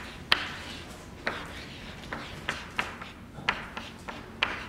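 Chalk writing on a blackboard: about eight sharp, irregular taps and short scrapes as the chalk strikes and drags across the board.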